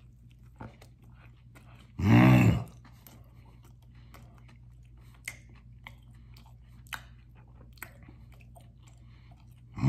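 A man chewing a mouthful of burrito close to the microphone: soft wet mouth clicks and smacks, with one loud, short, low vocal grunt about two seconds in.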